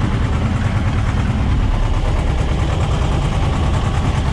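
Tractor diesel engine running steadily under load as it pulls a ridger through potato rows, heard from inside the cab.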